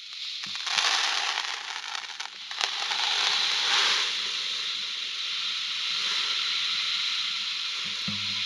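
A steady crackling hiss with a few sharp clicks, starting suddenly out of silence.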